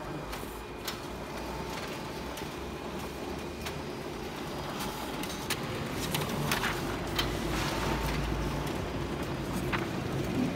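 Konica Minolta bizhub C658 colour copier running a print job: a steady mechanical hum with scattered clicks, getting a little louder about halfway through, as printed sheets feed out and are handled in the output tray.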